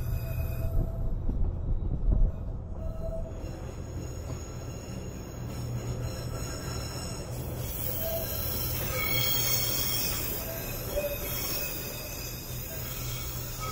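Passenger train running along the track with a steady low rumble. Thin high-pitched wheel squeal rides over it, strongest in the second half, as the train rounds a curve.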